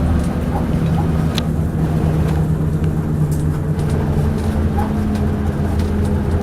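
Leyland Atlantean double-decker bus's diesel engine running under way, with occasional clanks and rattles. The engine note steps up about four and a half seconds in.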